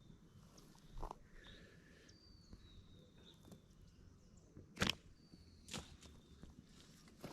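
Irregular footsteps and knocks on the forest floor, the loudest a sharp knock about five seconds in. Behind them a bird repeats a faint, short falling whistle every couple of seconds.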